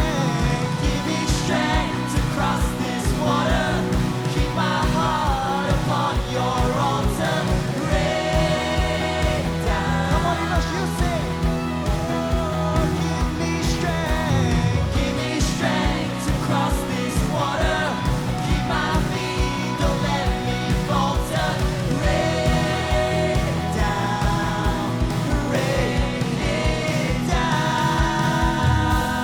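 A live worship band plays a rock-style worship song with a steady drum beat. Sung vocals run over the band.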